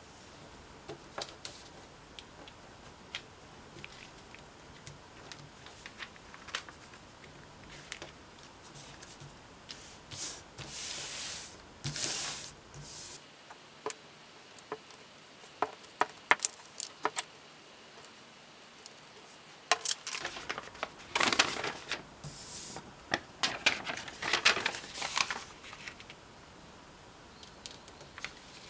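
Sheets of origami paper being handled and slid on a table: scattered light taps and clicks, with short bursts of paper rustling and sliding about ten seconds in and again between about twenty-one and twenty-five seconds.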